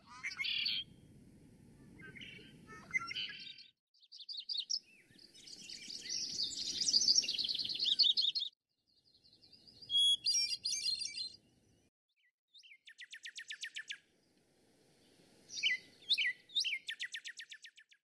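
Wild songbirds singing in five short cut-together stretches, each with a faint outdoor background that drops out in the brief gaps between them. A red-winged blackbird sings first and a northern cardinal comes later; several stretches end in quick, buzzy trills.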